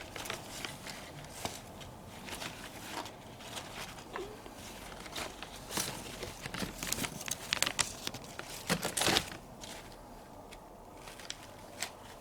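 Irregular rustling and crinkling with scattered sharp clicks, busiest and loudest about eight to nine seconds in.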